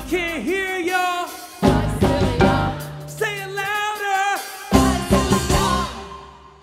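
Music: a drum kit landing hard accents about every three seconds, with a bending melodic line over it, dying away near the end.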